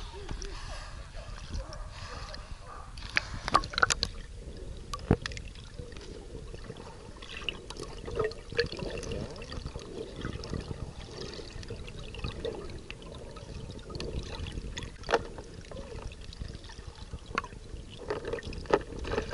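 Water sloshing and gurgling around a camera held at and under the surface, with scattered sharp clicks and splashes as a swimming dog paddles close by.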